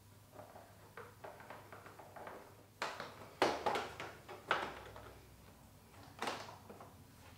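Plastic side fairing panel of a Kawasaki ZX-4RR being handled and fitted into place by hand: a string of light clicks, rubs and knocks, with several sharper clacks around the middle.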